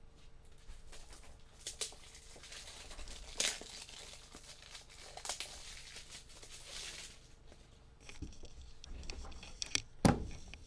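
Plastic crinkling and rustling as trading-card supplies such as top loaders and sleeves are handled, with several sharp clicks, the loudest near the end.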